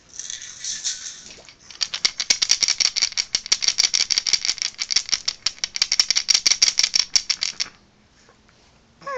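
A toy rattle shaken in short bursts, first a shushing rattle, then a wooden ring rattle with wooden beads shaken for about six seconds, the beads clicking sharply against the ring several times a second.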